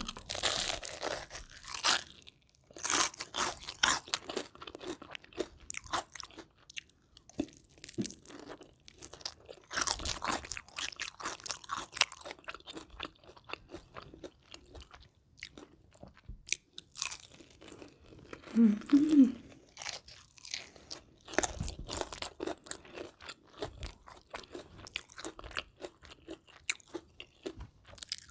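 Close-miked biting and chewing of crispy battered deep-fried chicken: loud, irregular crunches of the crust, coming in clusters with quieter chewing between them.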